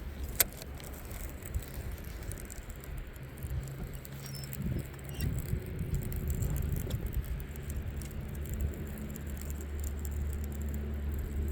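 Wind rumbling on the microphone over a low steady hum, with one sharp click about half a second in and a few faint ticks and taps.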